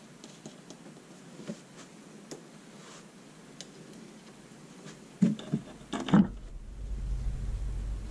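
Workbench handling of a knife blade being set upright in a bench clamp: faint clicks and taps, then a few sharp knocks about five to six seconds in, followed by a low steady hum for about two seconds near the end.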